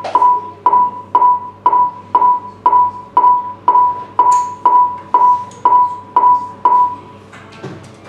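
A run of short, identical electronic beeps on one pitch, about two a second and some fourteen in all, each with a sharp start and a brief decay; they stop about seven seconds in.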